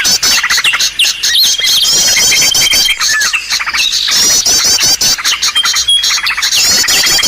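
Small-bird lure call recording: a dense, loud chorus of overlapping chirps and rapid trills from small songbirds, with a steady high whistled note that comes back every few seconds.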